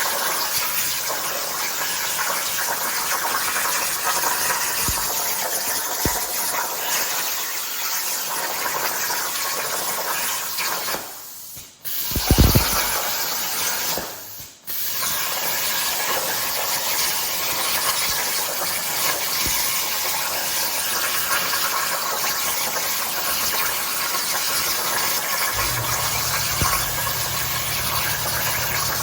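Plasma torch on a Langmuir CNC table hissing steadily while cutting, cutting out twice briefly near the middle, with a short low thump between the two breaks.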